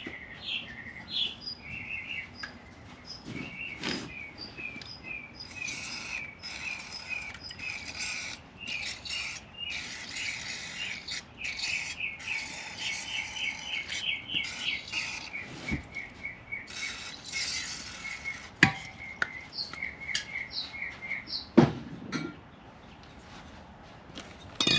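A small bird chirping rapidly and over and over. Several spells of hiss from an aerosol can of lubricant being sprayed onto the rusted valves of a cylinder head. Two sharp knocks near the end.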